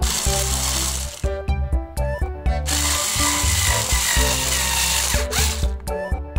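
DEDONG cordless electric screwdriver running in two spells, about a second at the start and then about two and a half seconds from near the middle, driving a screw into a plastic toy housing.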